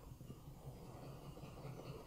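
Faint scratching of a soft 6B graphite pencil scribbling a thick coat of graphite onto the back of a paper pattern.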